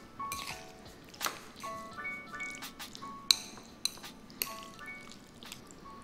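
Soft background music with several sharp clinks of utensils against a bowl, one about halfway through the loudest.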